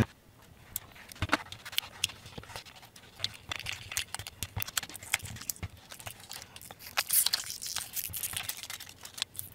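Plastic shrink-wrap label and a thin foil layer being peeled off a AA lithium-ion battery by hand: irregular crinkling and crackling with many quick ticks.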